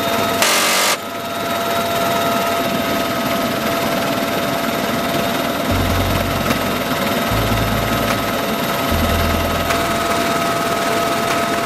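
Helicopter running steadily, a loud drone with a constant whine. About half a second in comes one short burst of M134 minigun fire, a continuous rip lasting about half a second.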